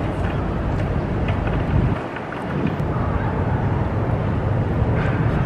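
Outdoor city ambience: a steady low rumble of traffic with wind buffeting the microphone, easing briefly about two seconds in.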